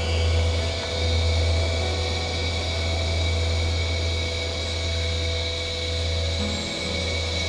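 Steady low drone with faint, steady high tones above it, part of an ambient soundtrack.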